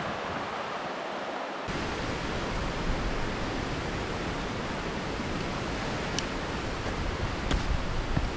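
Gale-force wind rushing over the microphone, a steady roar of noise that gains a heavy low buffeting rumble after a cut a second and a half in. A few sharp clicks near the end.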